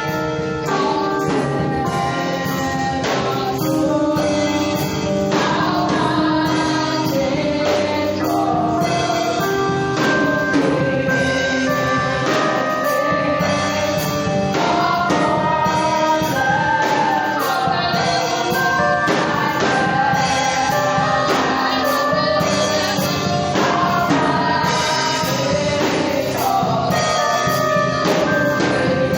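Gospel music: a choir singing a worship song with instrumental accompaniment.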